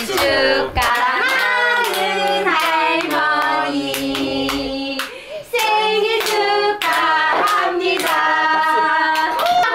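High voice singing a song, with hand claps keeping time about twice a second; the sound dips briefly about five seconds in.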